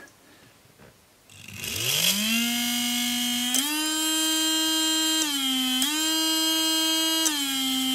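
Old brushed Demon electric motor driven by a Demon 2C speed controller, spinning up from rest with a rising whine about a second and a half in, then running steadily. Its pitch steps up once and dips briefly twice as the throttle is changed. It runs really nice and smooth, a sign the controller is working properly.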